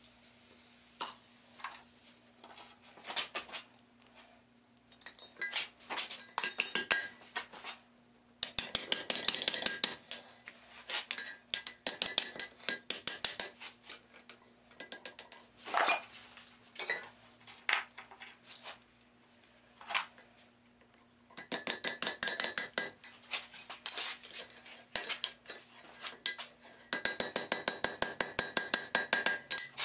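Hand hammer striking red-hot steel on an anvil: a few scattered taps, then several runs of rapid blows with the anvil ringing under them. This is forge welding stacked steel plates together.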